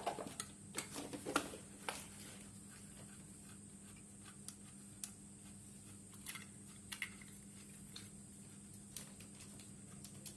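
Faint scattered clicks and taps, a few close together at first and then only now and then, over a low steady hum.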